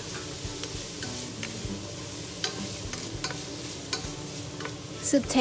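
Diced onion, carrot, celery and garlic sautéing in olive oil in a stainless steel pot, with a steady sizzle. A wooden spatula stirs them, scraping and tapping against the pan in scattered ticks.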